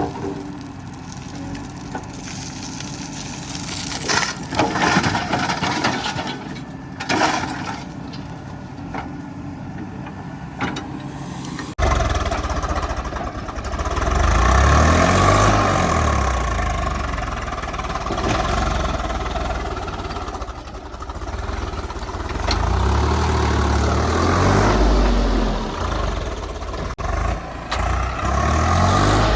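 Heavy diesel engine running. About twelve seconds in it abruptly gets louder and deeper, then rises and falls in pitch as it is revved up and down.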